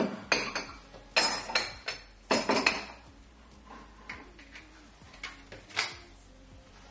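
Crockery (cups, a small teapot and a jug) being clinked together and set down on a wooden cupboard shelf. A cluster of sharp clinks comes in the first few seconds, followed by a few lighter taps.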